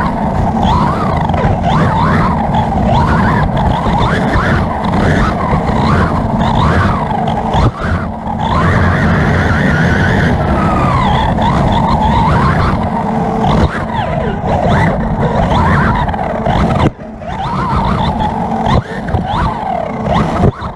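Onboard sound of a 1:8 scale electric R/C buggy's Hobbywing 3600kv brushless motor and drivetrain, whining up and down in pitch over and over as the throttle is worked, over steady rumble from the tyres on dirt. A few sharp knocks break in along the way.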